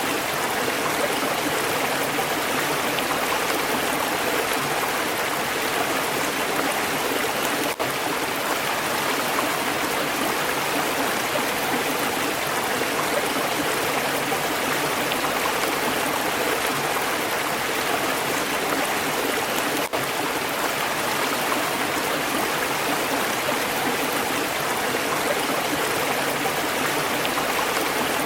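Stream water flowing and splashing in a steady, continuous rush, broken twice by a momentary dip.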